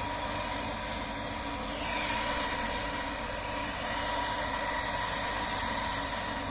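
Combine harvester running steadily in corn: even machine noise with a constant high whine.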